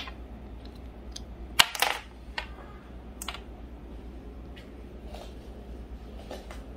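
Light plastic clicks and taps from AirPods Pro 2 earbuds and their charging case being handled and set down on a table. A cluster of louder clicks comes about a second and a half in, then a few scattered fainter taps.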